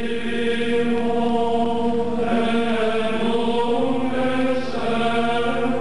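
Sung chant with long, steady held notes, the pitch shifting a couple of times, played as background music.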